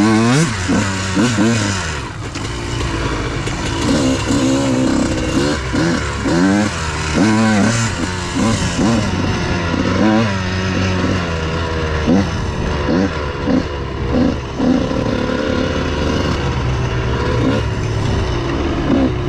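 Dirt bike engine heard from the rider's position, its pitch climbing and dropping again and again as the throttle is opened and eased off.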